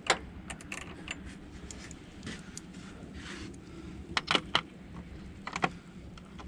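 Scattered light clicks and clinks of hand tools being handled after a battery terminal is tightened, with a cluster of them about four seconds in, over a steady low hum.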